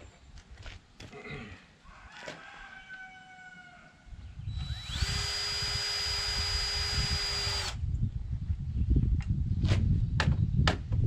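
Cordless drill spinning up with a rising whine, running at a steady pitch for about three seconds and stopping sharply, as it bores into the top of a wooden stair stringer. Low rumbling and clicks follow.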